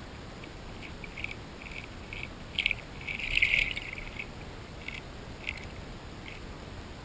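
Grass carp crunching corn kernels and cat-food pellets, heard underwater: scattered sharp crackling clicks, with a dense, loud run of them about three and a half seconds in.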